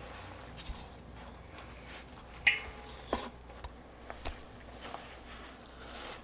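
Fish being filleted by hand with a knife on a wooden cutting board: a few light clicks and taps, the sharpest about two and a half seconds in, over a faint low hum.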